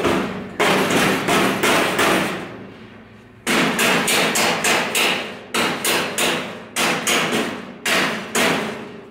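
Mallet hammering a kit car's front lower control arm into its frame bracket: runs of quick blows, about three a second, with short pauses between. The bracket tab is bent in slightly too narrow, so the arm has to be driven in.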